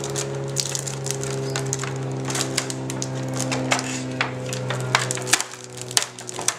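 Plastic unboxing packaging crackling and clicking as it is handled, with many sharp crackles, over a steady low hum that cuts off about five and a half seconds in.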